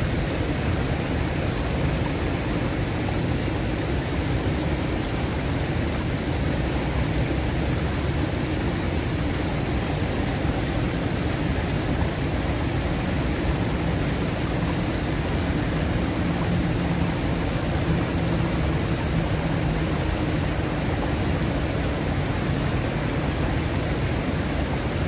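Steady rushing noise of a flowing river, heaviest in the low end and even in level throughout. A faint low hum rises through it for a few seconds past the middle.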